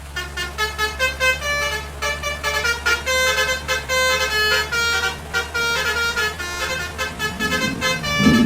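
Basuri multi-tone telolet horn on a bus playing a quick tune of short notes, over the steady hum of the engine. A louder low rumble builds near the end.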